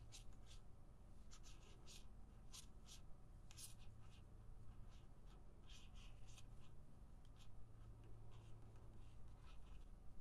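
Faint, irregular scratching and small ticks of a metal crochet hook working wool yarn through stitches.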